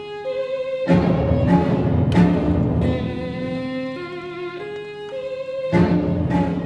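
Solo violin with a string orchestra playing slow classical music: long held notes, broken by sudden loud full-ensemble entries about a second in and again near the end.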